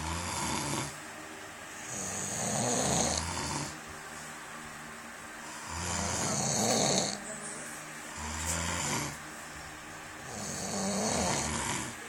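Heavy snoring: about five loud, rasping snores, one every two to three seconds, with quieter breathing between them.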